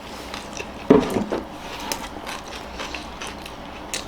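Close-up chewing and mouth sounds of people eating chicken burgers: a run of small wet clicks and crackles, with a short voiced murmur about a second in.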